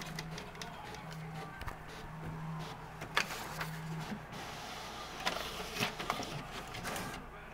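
HP all-in-one inkjet printer printing: its motor hums in short passes about once a second, then a sheet feeds out with several sharp clicks and paper rustling as a kitten paws at the paper.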